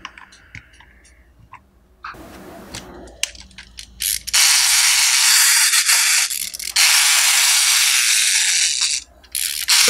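Plastic toy penguin's internal mechanism running with a loud, steady mechanical noise, starting about four seconds in and cutting out briefly near the end before starting again. Before it, a few light clicks of plastic toys being handled.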